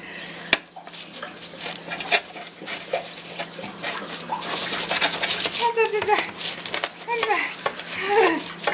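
A kitchen knife cuts through baked flatbread crust on a metal baking tray with crisp crunching and scraping. A cat gives a few short meows in the second half.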